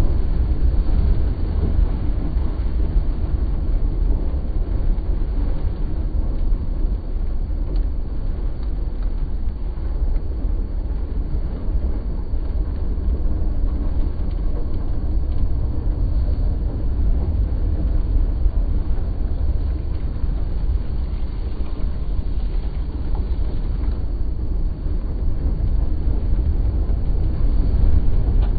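A car ploughing through deep floodwater, heard from inside the cabin in slow motion: muddy spray sheeting over the side window and the tyres in water make a steady low rumble.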